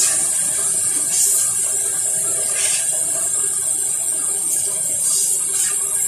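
A steady high hiss throughout, with short, louder spray hisses about a second in, near three seconds, and twice around five seconds.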